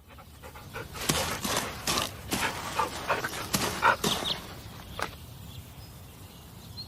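Dog panting: a run of quick breathy puffs over the first few seconds, followed by a sharp click and then quieter breathing.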